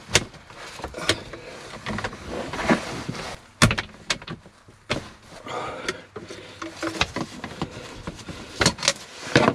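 Hands working a clear plastic RV water-filter housing with a plastic filter wrench: irregular plastic clicks, knocks and scrapes as the wrench is fitted and the housing is turned loose, with a sharper knock about four seconds in and a cluster near the end.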